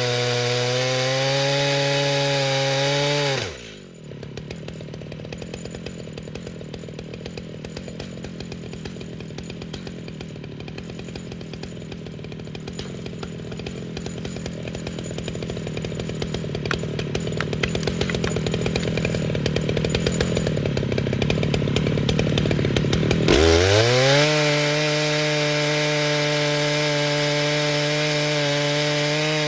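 Stihl MS881 chainsaw on an Alaskan mill running at full throttle, dropping to a low, ticking idle about three and a half seconds in. It idles for some twenty seconds, getting gradually louder, then revs quickly back up to full speed near the end.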